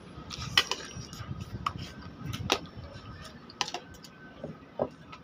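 Close-up eating sounds: chewing and wet mouth clicks from a person biting into boiled chicken, with a scatter of short sharp ticks, some of them light clinks of dishes or utensils.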